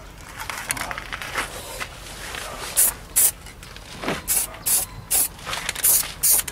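Aerosol spray paint can sprayed in a series of short hissing bursts, mostly in the second half, painting a new brake disc against rust.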